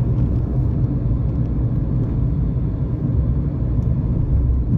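A mountain river rushing past, a steady low rumble of flowing water.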